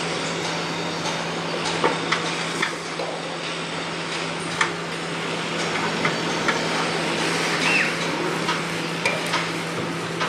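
Building-site din: a steady machine hum under a wash of noise, broken by irregular hammer blows and metallic knocks, roughly one a second.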